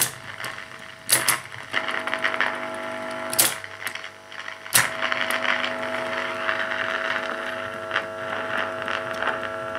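Geloso G257 reel-to-reel tape recorder with its piano-key controls clacking four times. Then the running machine gives a steady hum with several pitches, its drive turning slowly on a makeshift belt made from a cut and glued O-ring.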